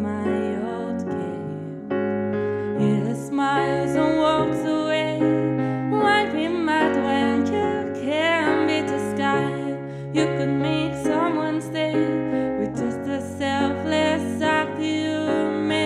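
A woman singing a gentle, slow song, accompanying herself on a Nord Stage keyboard played with a piano sound.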